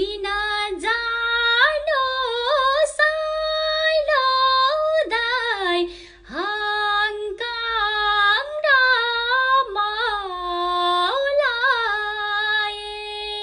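A woman singing a Nepali song unaccompanied: one high voice holding long notes decorated with quick wavering ornaments, with a brief breath pause about halfway through.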